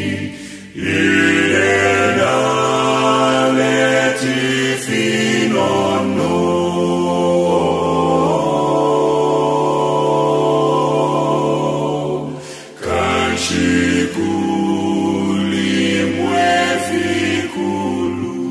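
An unaccompanied choir singing in several-part harmony, holding long chords that shift every second or two, with brief pauses for breath about a second in and again about two-thirds of the way through.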